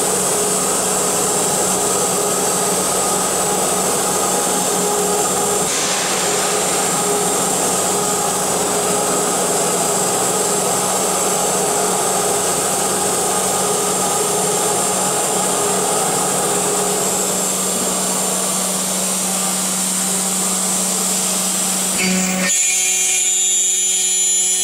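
CNC machining centre's spindle running and machining an aluminium profile: a steady high-pitched whine over grinding cutting noise. About 22 seconds in the cutting noise stops abruptly, leaving the spindle's steady tones.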